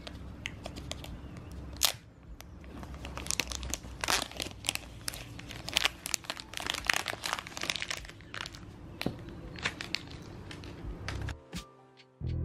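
Clear plastic shrink wrap being peeled and torn off a cardboard phone box: a dense run of crinkling and crackling that stops about a second before the end. Music starts right at the very end.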